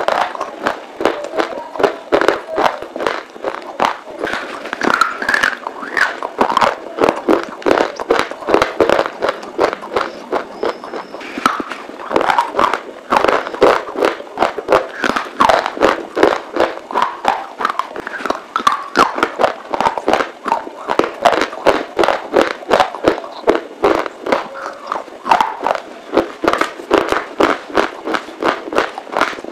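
Close-up crunching and chewing of brittle baked edible clay, sharp crunches coming in quick succession, about two or three a second.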